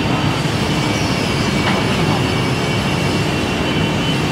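Steady, loud mechanical noise of a running CYTEK CX-8 CNC panel saw and the woodworking machinery around it.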